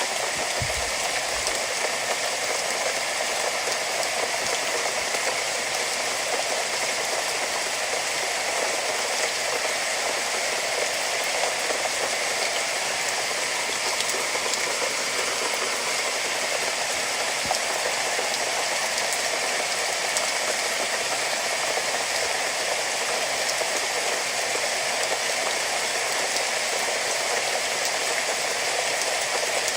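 Steady rainfall, an even hiss of drops with no letup. A brief low thump sounds about a second in.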